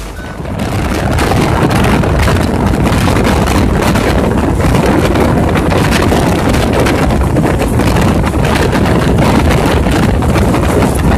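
Express train running at speed, heard from the open door of a non-AC coach: wind buffeting the microphone over the steady rumble and rattle of the wheels on the track.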